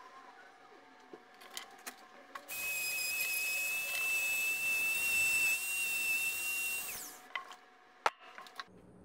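A Dremel rotary tool running at high speed with a steady high whine for about four and a half seconds, then winding down, followed by a few sharp clicks.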